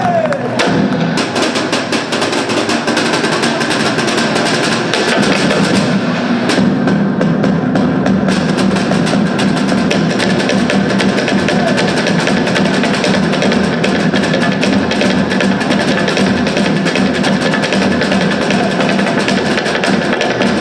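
Samoan drumming: a fast, steady rhythm of many quick strikes accompanying a dance performance.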